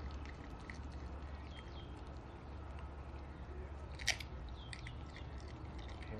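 A corgi chewing and biting on raw lamb tail held in a gloved hand, with scattered small crunches and one sharp crunch about four seconds in, over a steady low hum.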